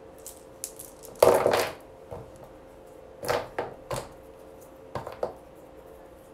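Pieces of beach glass clinking and clacking together as they are handled, loudest in a short rattling cluster about a second in, then a few single sharp clicks.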